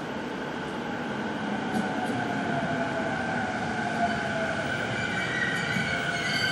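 Toei 10-300 series electric train pulling into the station and slowing, with steady high whining tones and a tone that falls in pitch as it brakes, growing gradually louder as it comes in.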